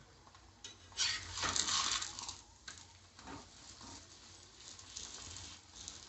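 Metal spatula pressing and scraping a sweet dal poli frying in oil on a hot dosa tawa, with sizzling. The loudest stretch starts about a second in and lasts about a second and a half, followed by a few shorter scrapes.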